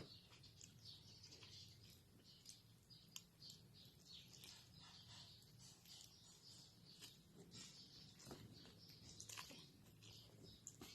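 Near silence with faint, scattered small clicks of a person chewing and eating pancit canton noodles, a little busier near the end.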